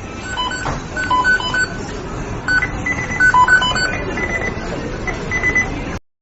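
McDonald's kitchen beeping: many short electronic beeps at several different pitches, overlapping and repeating, over a steady background noise. It cuts off suddenly near the end.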